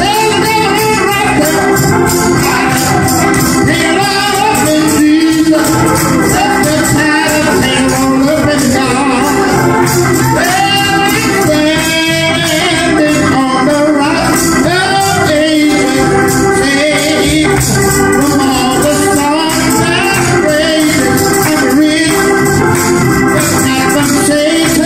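Gospel song: a man singing with his own organ accompaniment, with hand percussion keeping time.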